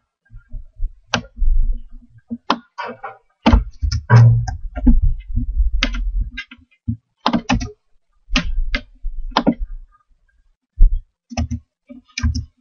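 Irregular clicks and taps of a computer keyboard and mouse, some with a dull low thump under them.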